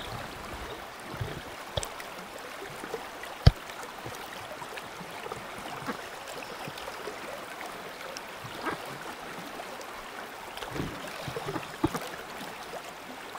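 Steady rush and ripple of a limestone spring creek flowing around a wading angler, with a few short sharp knocks, the loudest about three and a half seconds in.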